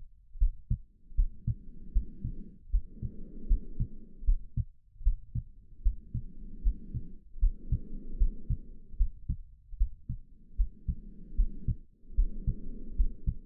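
Steady heartbeat thumping under slow breathing. The breaths rise and fall, each half lasting about two seconds, in an even in-and-out rhythm.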